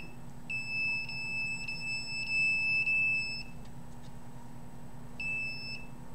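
A handheld electronic detector's alarm beeping: one long steady high-pitched beep of about three seconds, then a short beep about five seconds in, each going off when the meter's reading passes its alarm threshold.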